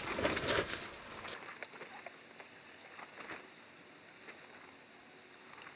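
Scattered light clicks and taps of metal parts being handled, louder in the first second and fainter afterwards.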